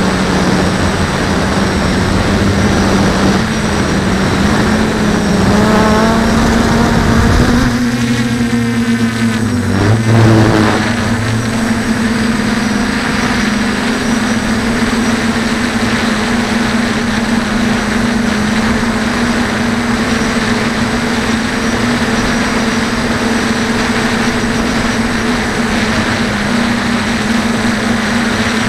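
DJI F450 quadcopter's four electric motors and propellers humming steadily as heard from its on-board camera, over a rushing noise. The pitch rises and falls a few times about a third of the way in as the throttle changes, then settles to an even drone.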